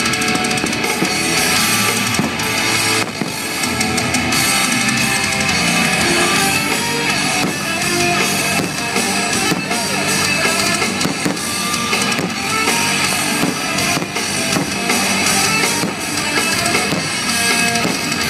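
Loud rock music with a driving drum kit and electric guitar, the soundtrack of a fireworks show.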